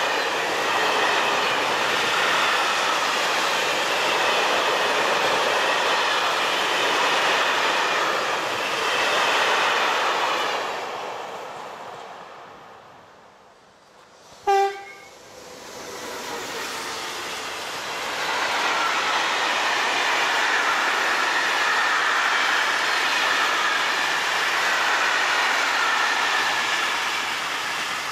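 A long freight train of tank wagons rolls past with a rushing rumble and a wavering squeal from its wheels, then fades away. Halfway through, one short, loud train horn blast sounds. Then a second freight train of tarpaulin-covered wagons, hauled by an SNCF BB 26000 electric locomotive, builds up and rushes past.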